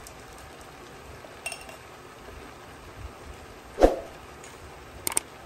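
A few sharp clicks: a faint tick about one and a half seconds in, one loud click a little before four seconds, and a quick double click near the end.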